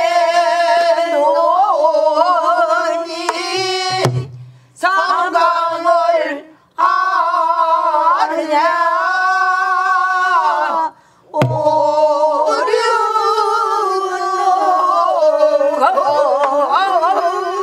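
Woman singing pansori in long held notes that waver and bend, with short breath breaks. Twice, about four seconds in and again about eleven and a half seconds in, she strikes the buk barrel drum once with a deep thud.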